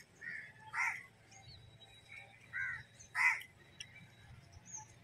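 Crows cawing: four calls in two pairs, about a second apart and then again past the middle, the second of each pair louder.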